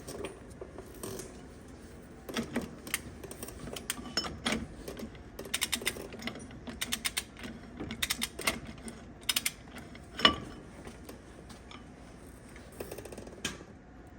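Irregular metallic clicks and clinks from hands-on work on a wheel hub, some in quick runs, with one louder knock about ten seconds in.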